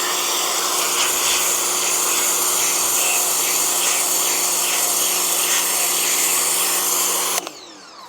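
Pressure washer running, its motor humming steadily under the loud hiss of the water jet blasting brickwork. About seven seconds in the spray stops suddenly and the motor winds down with a falling tone.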